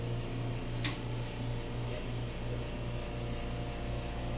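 Steady low machinery hum with a few held tones above it, with one short sharp click about a second in.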